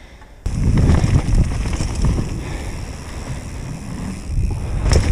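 Mountain bike riding fast down a trail: wind buffeting the camera microphone over the rumble and rattle of tyres and frame on dirt and wooden ramps, starting abruptly about half a second in. A sharp knock comes near the end.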